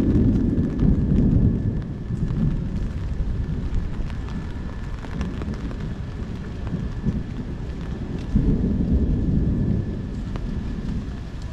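Steady rain with thunder rumbling low, loudest at the start and again about eight seconds in.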